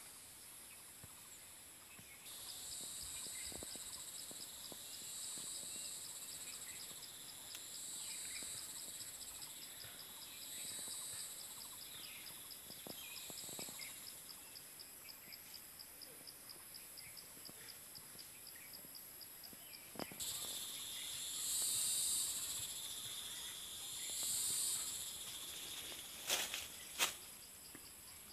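Insects calling in chorus: a steady high-pitched whine, with a fast, even pulsing trill from about two seconds in and high calls that swell and fade every few seconds, loudest twice in the last third. Two sharp clicks near the end.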